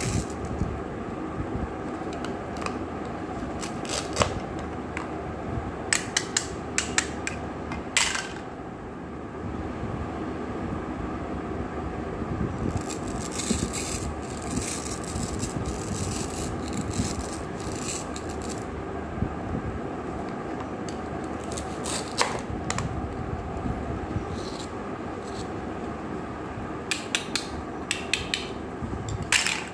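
Plastic toy fruits and vegetables being cut apart with a plastic toy knife and handled: short scraping rips and plastic clicks in irregular clusters, over a steady background noise.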